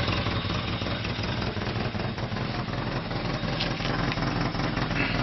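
Lada Samara 1.5's four-cylinder carburettor engine idling rough and a little uneven, a sign of its badly worn carburettor.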